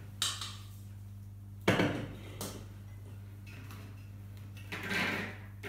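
Silicone spatula scraping and knocking against a stainless steel mixing bowl as batter is emptied into a cake tin, with one sharp metallic knock a little under two seconds in. Near the end comes a longer scrape as the batter is spread in the pan, all over a low steady hum.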